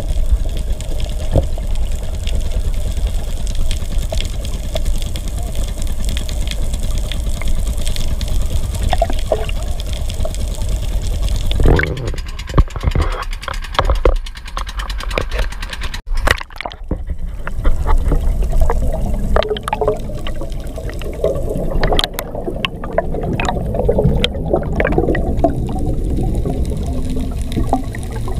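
Water sound heard through an underwater camera housing. A steady, muffled water noise runs for the first dozen seconds. Knocks and a sudden break come about halfway, then gurgling diver's bubbles fill the second half.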